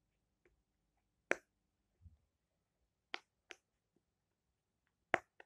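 Silicone pop-it fidget toy: bubbles pressed through one at a time, giving about five short, sharp pops at irregular intervals with quiet in between.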